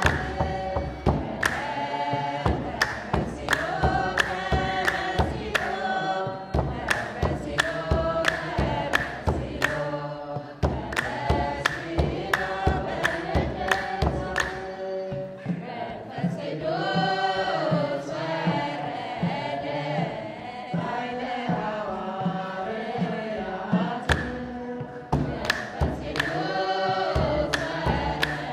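Ethiopian Orthodox mezmur: a choir singing a hymn over a steady percussive beat.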